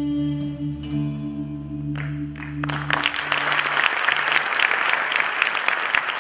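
Music ends on a long held chord that fades away, and an audience starts applauding about three seconds in, building to steady clapping.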